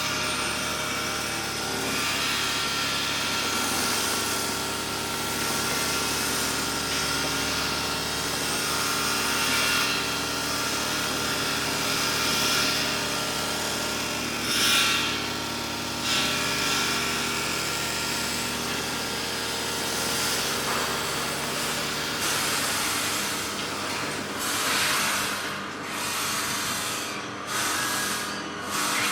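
Construction site ambience: machinery running steadily with a mix of engine and power-tool noise, and a few short, louder bursts of hissing noise, one about halfway and several near the end.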